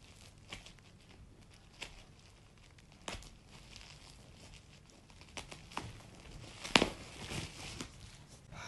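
Parcel packaging crinkling and tearing as it is unwrapped by hand: scattered short rustles, with the loudest crackle about two-thirds of the way through.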